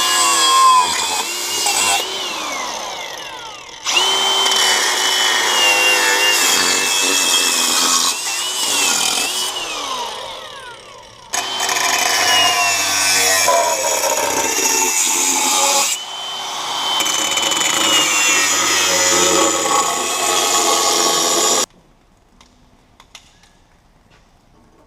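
Angle grinder cutting through an old rusted steel exhaust pipe in several runs, its high motor whine sagging under load and winding down between cuts, then stopping abruptly.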